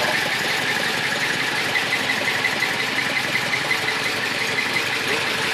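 Datsun 160J Violet's freshly rebuilt L16 four-cylinder engine running steadily on its first start after the rebuild.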